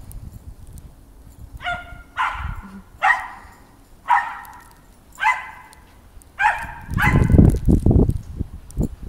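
A dog barking seven times, short sharp barks about a second apart, each dropping in pitch. Near the end a loud low rumble comes in.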